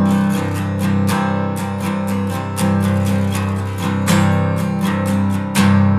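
Background music: acoustic guitar strumming in a steady rhythm.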